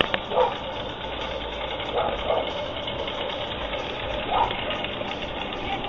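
Push reel lawn mower running over grass with a steady whirring clatter from its spinning blades. A few short louder sounds break in, about half a second, two and four and a half seconds in.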